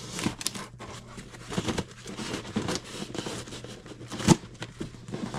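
Knife blade cutting and scraping through packing tape on a cardboard box, a run of short scratchy rasps, with one sharp knock a little past four seconds in.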